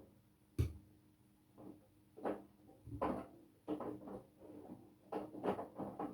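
Front-loading washing machine drum tumbling wet laundry: irregular swishes and soft thumps of water and fabric turning over, the loudest a low thump about half a second in, over a faint steady motor hum.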